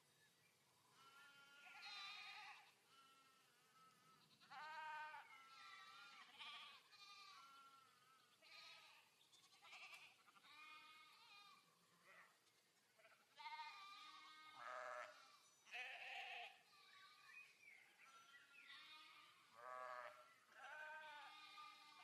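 A flock of goats bleating, many wavering calls overlapping and coming again and again throughout.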